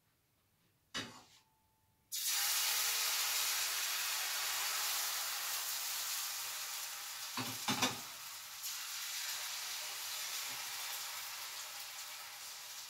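Blini frying in an oiled pan: the sizzle starts suddenly about two seconds in, after a short clink, and slowly fades. A few knocks of the pan or utensil come about eight seconds in.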